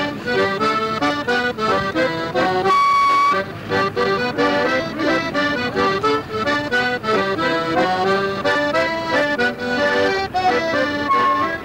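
Piano accordion playing a brisk tune of quick notes, with one note held about three seconds in.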